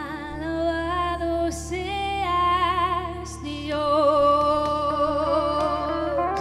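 A woman singing slow, long held notes with vibrato into a microphone, over a steady sustained backing from a worship band.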